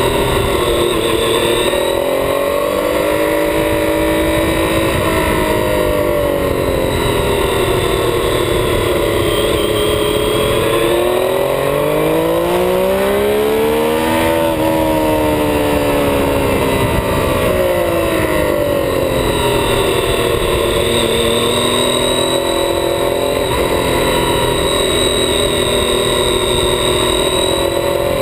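Triumph Street Triple 675 inline-three engine heard from on the bike at track speed, its pitch rising and falling with throttle through the corners, with one long climb in revs about halfway through, then falling away. Constant wind rush over the bike.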